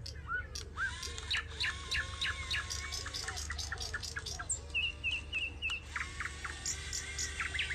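Several birds chirping and calling with many short, quick notes, over a low steady hum.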